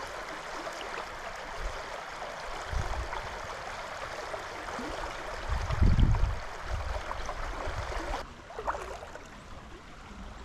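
Trout stream running steadily, with several deep low buffets of wind on the microphone, the strongest about six seconds in. The water sound drops away abruptly near the end.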